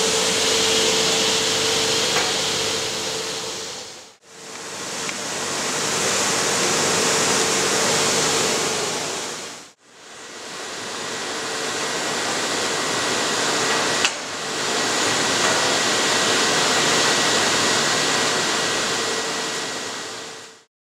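Tile edge-rounding machine running with its blower fan: a steady, loud hiss over a low hum. It fades out and back in twice, and there is a sharp click about two-thirds of the way through.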